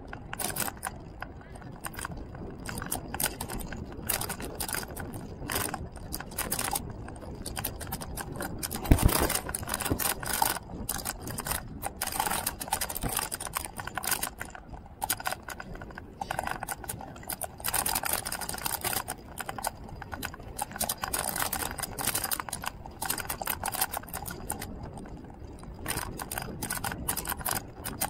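Irregular rattling and clicking from a moving two-wheeler and its mounted camera jolting over asphalt, with one louder knock about nine seconds in.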